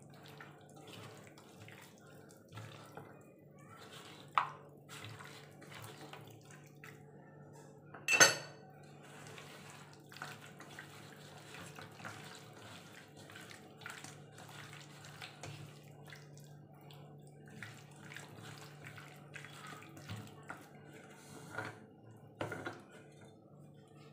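A hand mixing cornflour into marinated chicken pieces in a stainless steel bowl: wet squelching and soft scraping with small clinks against the bowl, and a sharper knock about eight seconds in. A low steady hum runs underneath.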